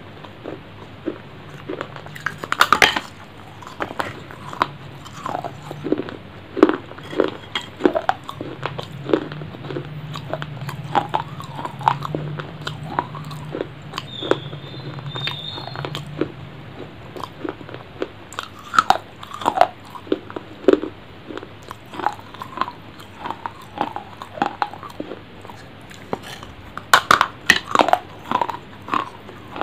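A person biting and chewing mango slices right at a clip-on microphone: many irregular wet mouth clicks and smacks, with a louder run of bites near the end.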